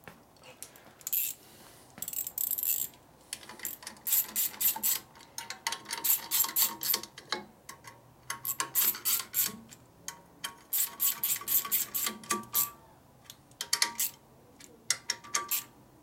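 Hand ratchet clicking in repeated quick bursts while tightening the bolts of a motorcycle carburettor's air cleaner backing plate.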